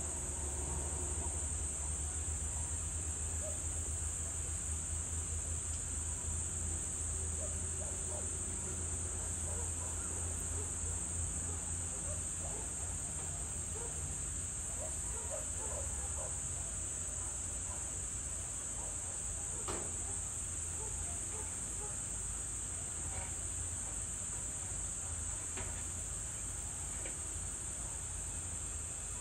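Steady, high-pitched chorus of insects, over a low steady rumble, with a few faint knocks about two-thirds of the way through and near the end.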